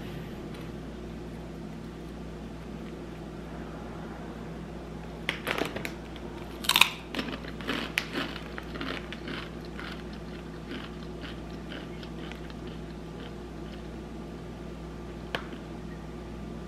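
Someone biting into and chewing crunchy Takis rolled tortilla chips: a burst of loud crunches about a third of the way in, then softer chewing crunches for a few seconds, and one more crunch near the end, over a steady low hum.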